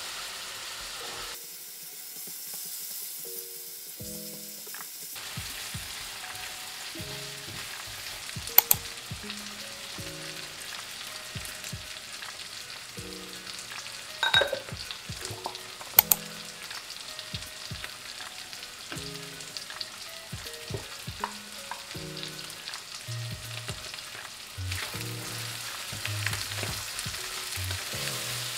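Food sizzling as it fries in oil in a pan while being stirred, with a few sharp clinks of a utensil against the pan.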